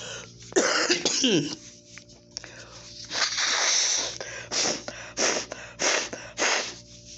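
A woman with an allergy-streaming nose blowing her nose and coughing in a series of hard blasts. A throaty one comes near the start, a long one about three seconds in, then four short sharp ones.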